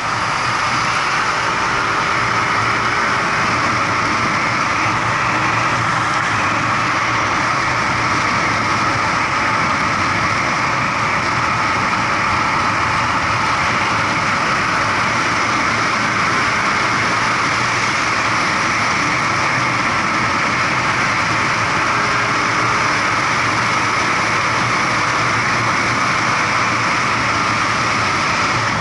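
Steady rush of wind and road noise from riding along a road, unchanging throughout.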